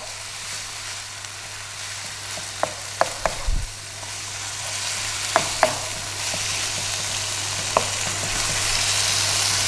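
Beef, onion and mushroom stir-fry sizzling in a nonstick pan as a wooden spatula stirs it, with several sharp knocks of the spatula against the pan. The sizzle grows louder toward the end as the mushrooms cook down.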